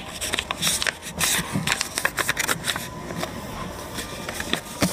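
Sheet of origami paper being folded and creased by hand: irregular rustling and crinkling with many small sharp crackles as the fold is pressed flat.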